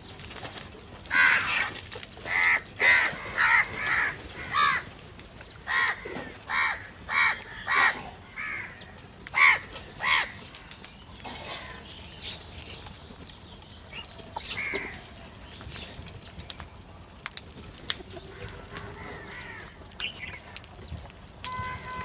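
A flock of house crows cawing: a quick run of loud, harsh caws in the first ten seconds, then fewer and fainter calls.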